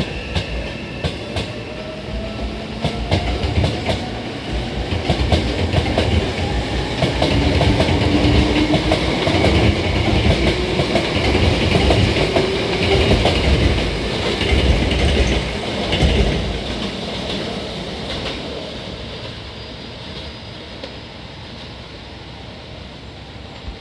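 Hankyu 9000 series electric train pulling away, its traction motors whining and rising in pitch as it accelerates, with wheels clacking over rail joints. The sound grows loudest midway as the cars pass, then fades as the train leaves.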